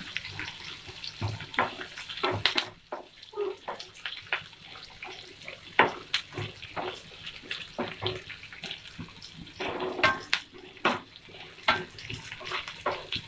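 Chopped onion sizzling in hot oil in a nonstick frying pan, stirred with a wooden spatula that scrapes and taps irregularly against the pan.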